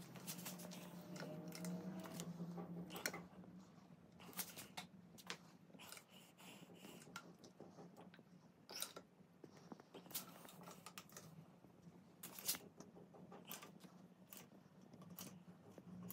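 Hand-squeezed caulking gun clicking at irregular intervals as its trigger is pumped to push out a bead of sealant, over a faint steady low hum.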